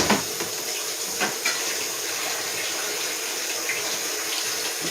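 Kitchen faucet running steadily into the sink, with a sharp knock at the start and a couple of lighter clicks about a second in.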